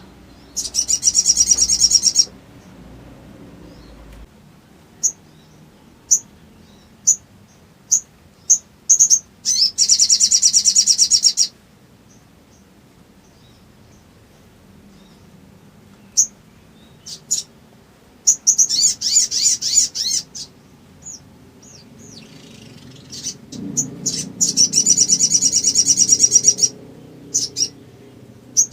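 Sogon (sogok ontong) tit-babbler calling: four long, rapid, high rattling trills separated by single sharp chirps, the agitated calling of a bird worked up to answer a rival.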